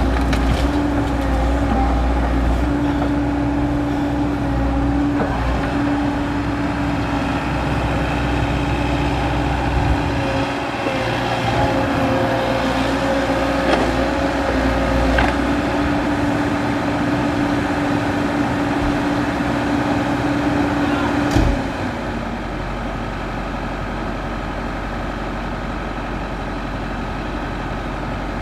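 XCMG XE75G excavator's diesel engine running under load with a steady hydraulic whine and a few sharp knocks from the working gear. About three quarters of the way in, a knock is followed by the whine stopping, and the engine settles to a steadier, quieter run.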